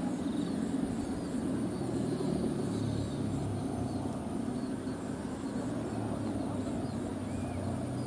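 Steady droning hum of a Balinese bebean kite's bamboo bow hummer (guangan), its strung ribbon vibrating in the wind as the kite flies.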